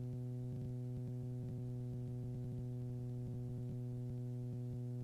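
Steady low electrical hum with a row of evenly spaced overtones on the cockpit intercom audio, unchanging throughout; the engine and wind noise are cut off with the microphone closed.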